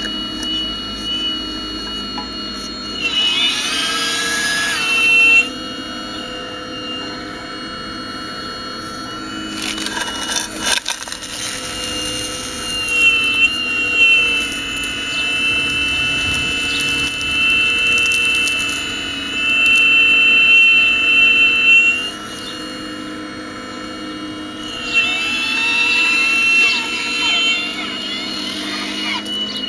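Radio-controlled scale model Hitachi Zaxis 870 excavator's motors and hydraulics whining as the arm and bucket dig. It holds a steady whine throughout, getting louder and higher with gliding pitch a few seconds in, through a long stretch in the middle and again near the end, with a few clicks around ten seconds in.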